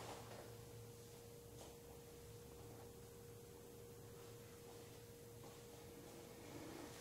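Near silence: room tone with a faint steady tone.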